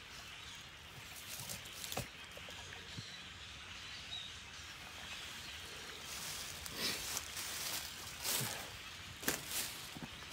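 Quiet outdoor background hiss, with several short crunching rustles of footsteps in dry fallen leaves in the second half.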